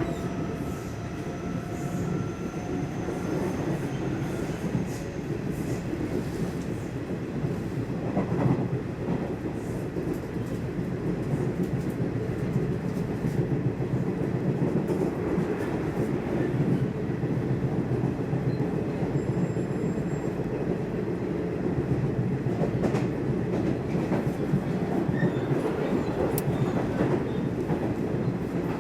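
Nishitetsu electric train running, heard from inside the passenger car: a steady rumble of wheels on rail with scattered clicks from the track. A faint rising whine from the motors fades out in the first few seconds.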